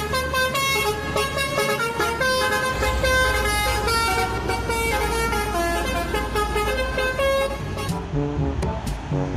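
Multi-tone bus air horn ('telolet') playing a quick run of changing notes, mixed with music, with a low vehicle rumble coming in about three seconds in.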